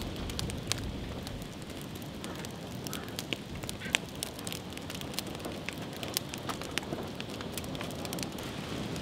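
Wood log fire burning, crackling with frequent sharp pops over a steady hiss.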